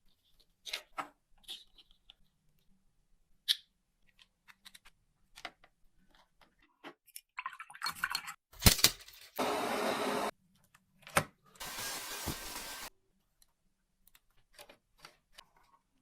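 Small clicks and clinks of parts of a cordless multi-tool being handled during a repair, with two short bursts of steady noise, each about a second long, past the middle.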